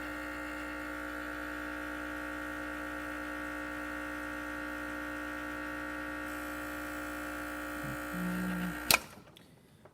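Gaggia Classic espresso machine's vibratory pump humming steadily under load, pushing water through an espresso puck ground too fine for the pressurized basket. About nine seconds in it is switched off with a sharp click and the hum stops.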